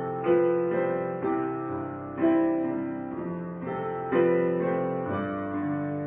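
Background piano music: slow chords struck about every two seconds, each ringing and fading away.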